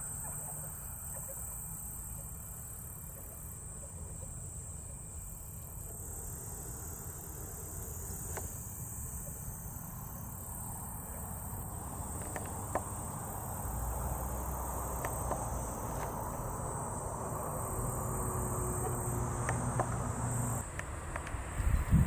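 Insects chirring in the paddy fields, a steady high-pitched drone throughout. A low, hazy background rumble grows gradually louder through the second half.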